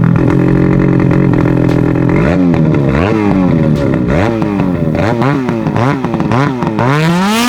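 Ski-Doo 850 Turbo two-stroke twin snowmobile engine running through an RPM titanium sport muffler. It holds a steady speed for about two seconds, then is blipped up and down repeatedly in quick throttle revs.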